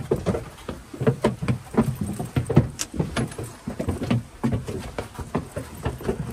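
Footsteps climbing the wooden treads of a narrow stone spiral staircase: an uneven run of knocks and scuffs, several a second.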